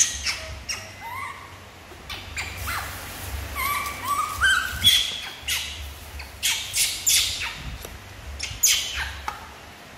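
Young macaque monkeys giving short, rising, chirping squeaks again and again, mixed with sharp clicks, over a low steady hum.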